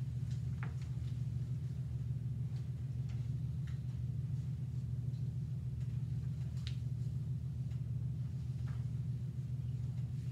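Steady low room hum, with a few faint short clicks and rustles scattered through it.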